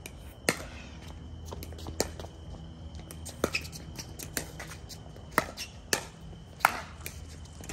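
Pickleball paddles striking the plastic ball in a rally: sharp pops about a second or so apart, six loud ones, with fainter ticks between.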